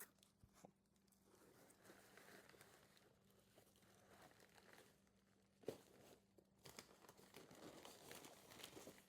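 Faint crinkling and rustling of shipping packaging being handled and opened, with one sharp tap about five and a half seconds in.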